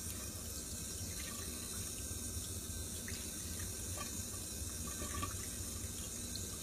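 Tap water running steadily from a faucet into a sink, splashing over a newborn's head as her hair is washed.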